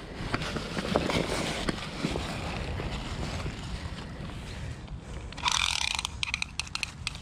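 Dry fallen leaves crackling and rustling as a landed pike is held down on them by hand, with a louder burst of crackling about five and a half seconds in.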